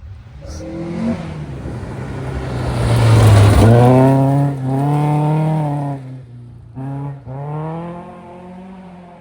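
Historic rally car going by at speed, engine revving hard. It is loudest about three and a half seconds in as it passes, then pulls away through gear changes, with a brief lift off the throttle around six to seven seconds.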